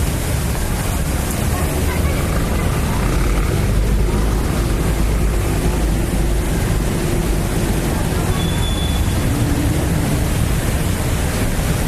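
Steady city street noise: cars and motorcycles passing, under a heavy low rumble of wind on the microphone.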